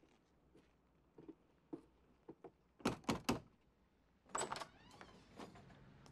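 Three quick, sharp knocks on a front door, then about a second later the door opening with a short squeak.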